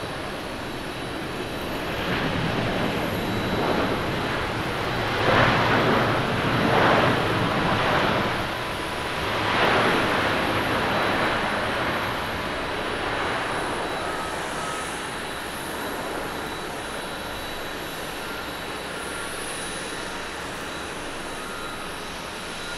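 Jet roar from the Rolls-Royce Trent XWB engines of an Airbus A350 rolling on a wet runway. It swells a couple of seconds in, surges several times over the next few seconds, then settles to a steady, lower rumble.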